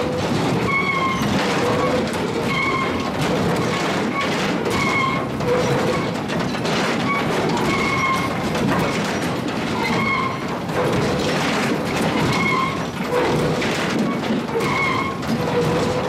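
Sawmill log step feeder running: a steady machinery din with scattered knocks as pine logs shift across the moving steel steps. A short pitched squeak recurs about once a second.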